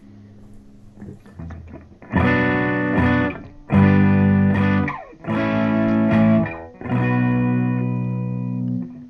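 Electric guitar played through a Boss Katana Mark I amplifier on its crunch channel: a few light picked notes, then four strummed chords with mild overdrive, each left to ring for a second or two, the last one cut off near the end.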